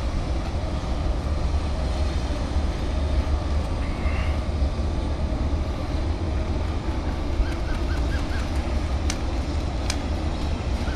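Steady low rumble of outdoor background noise, with two sharp snaps about a second apart near the end, typical of airsoft guns firing single shots.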